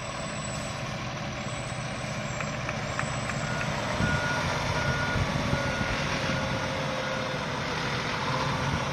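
Aerial ladder fire truck's diesel engine running as it manoeuvres. About four seconds in its backup alarm starts, beeping about once a second, which signals the truck going into reverse.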